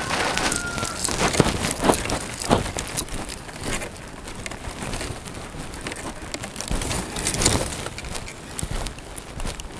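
Irregular crackles and rustles from a bundle of dry twigs being carried, with footsteps on grass. A short whistle-like note sounds about half a second in.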